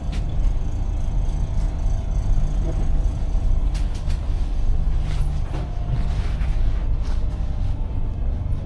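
Steady low engine rumble of a moving vehicle, with a few light clicks scattered through it.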